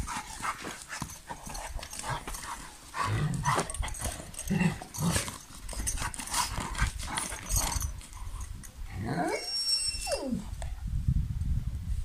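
Kangal dog snuffling and digging in loose dirt with its snout, giving irregular scraping and sniffing noises. About nine seconds in it gives a short whine that rises and then falls.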